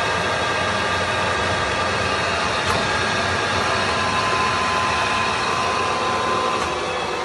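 Kingston HL2500 engine lathe running with its chuck spinning, giving a steady hum with a whine of several held tones. A higher tone joins about halfway through and fades shortly before the end.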